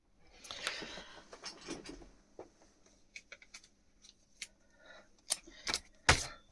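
Handling noise: rustling for a second or two, then scattered short clicks and knocks, a few louder ones near the end.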